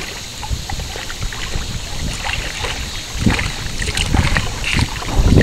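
River water sloshing and splashing as a hooked channel catfish is drawn through the surface toward a wading angler, with a few louder splashes in the second half.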